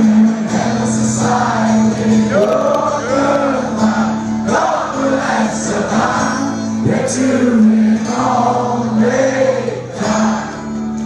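Live solo acoustic performance: a man singing into a microphone while strumming an acoustic guitar, heard through a club PA.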